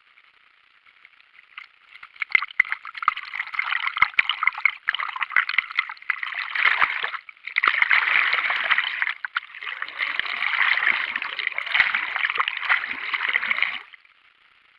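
Water of the Isar weir's waterfall rushing and splashing, coming up loud about two seconds in, with two brief dips in the middle, and cutting off suddenly near the end.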